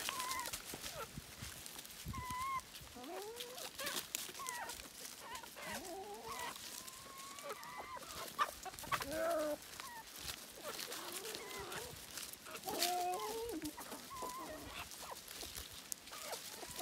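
Backyard hens clucking, with many short calls that bend up and down in pitch, as they peck at treats among dry leaves. Light clicks and rustles run under the calls.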